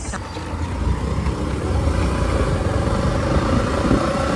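Motorcycle running at road speed, heard from on the bike, with wind rumble on the microphone.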